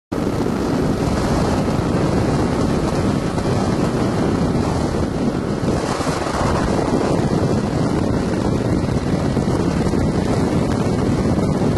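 Steady rushing wind buffeting the camera microphone, starting abruptly and holding level throughout.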